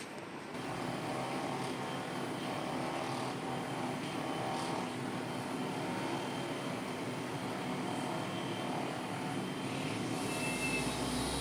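A steady, motor-like drone starts about half a second in and keeps going, with a deeper rumble joining near the end.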